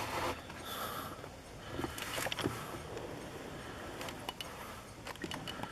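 Faint, scattered light clicks and taps as small lock pins and tools are handled on a work surface, a few at a time.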